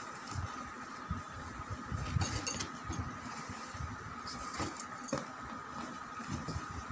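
Shrink-wrapped cardboard product boxes being handled and slid about inside a cardboard carton: scattered rustling, scraping and light knocks, busiest about two seconds in and again around five seconds, over a steady faint high hum.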